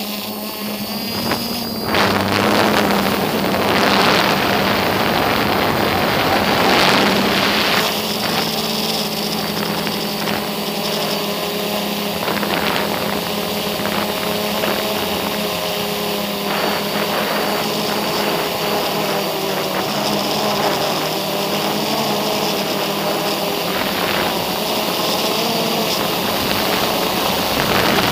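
Multirotor drone's electric motors and propellers buzzing steadily, heard from the onboard camera, the pitch drifting slightly as the motors change speed. Gusts of wind noise hit the microphone in the first several seconds.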